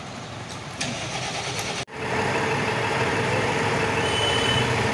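Quiet street noise, then, after a sudden break about two seconds in, a Tata truck's diesel engine idling steadily.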